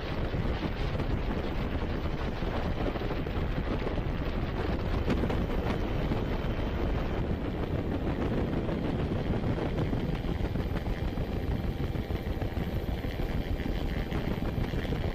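Steady rumbling roar of wind buffeting the microphone, with no single distinct event.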